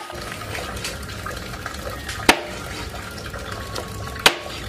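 Water running steadily, with two sharp knocks about two seconds apart.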